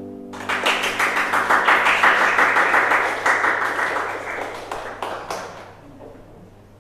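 Audience applauding with many quick hand claps, starting just as the music's last held note stops. The applause dies away after about five seconds.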